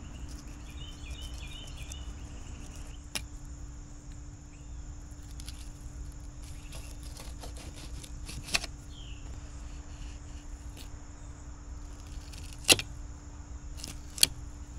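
Fillet knife cutting a bluefish on a plastic cutting board: quiet slicing with a few sharp taps of the blade against the board, the loudest about three-quarters of the way through, over a steady low background hum.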